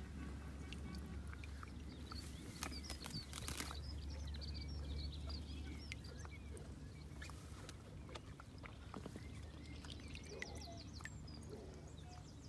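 Small birds chirping and twittering throughout, with a few brief water splashes as a mute swan dabbles its bill, over a low steady rumble.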